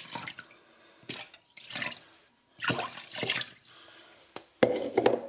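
Water poured into a container of freshly squeezed lemon juice and pulp, splashing in about five separate bursts, the loudest near the end.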